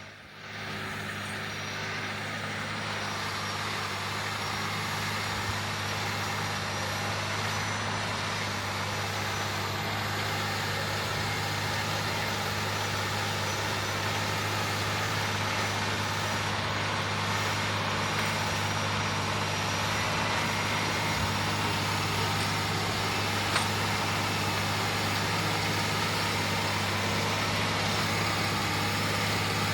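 John Deere 9360R tractor's diesel engine running steadily under load while pulling an 8-bottom moldboard plow, growing slowly louder.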